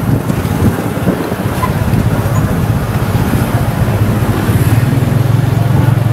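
Motorbike engine pulling a tuk-tuk, heard from the passenger carriage: a steady low engine drone under road and wind noise. The engine note fades about half a second in, then picks up strongly again about three and a half seconds in.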